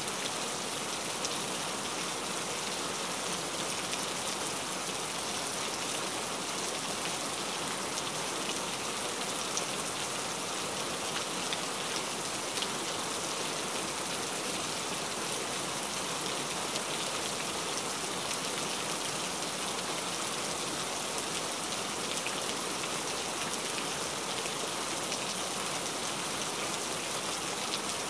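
Steady rain falling: an even, mostly high hiss with scattered small drop ticks.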